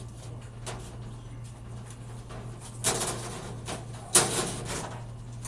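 Racing pigeons and their shipping crates being handled: a few light clicks and two short rustling bursts, the second sudden and the loudest, over a steady low hum.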